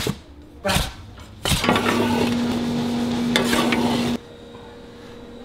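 Dirt biscuits being stirred in loose earth: a steady gritty scraping and rustling over a low hum, after a few short knocks near the start. The scraping cuts off suddenly about four seconds in, leaving only a faint hum.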